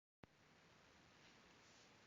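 Near silence: faint steady hiss of room tone, with a tiny click as the audio starts.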